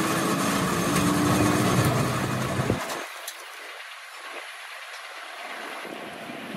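Lathe running steadily with a boring bar through a Suzuki three-cylinder head's camshaft bores, boring them out to take new bushes. The machine hum cuts off suddenly about three seconds in, leaving a fainter hiss.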